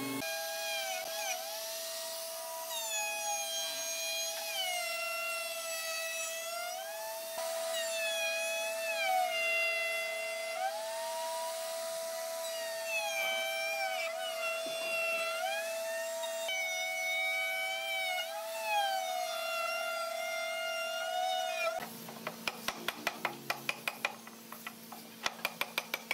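High-pitched whine of a woodworking power tool running: a steady tone with other tones sweeping up and down over it. About 22 s in it cuts to a quick run of sharp taps or knocks.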